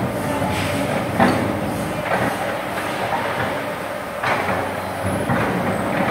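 Hydraulic excavator working under load: the diesel engine running hard with repeated metallic clanks from the bucket, arm or tracks, the sharpest about a second in.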